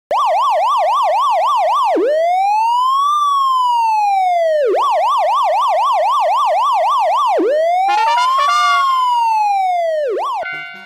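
Electronic emergency-vehicle siren alternating between a fast yelp, about four sweeps a second, and a slow wail that rises and falls over about two and a half seconds, twice over. Some steady tones join in under the second wail, and the siren fades away near the end.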